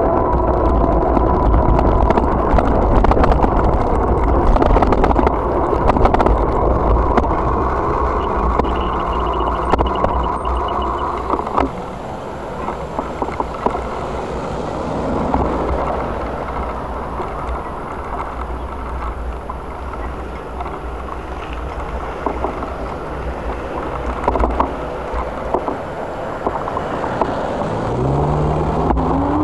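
Wind rushing over a bicycle-mounted camera's microphone, with road and tyre noise and small rattles and knocks from bumps while riding. Near the end a motor vehicle's engine rises steeply in pitch as it accelerates.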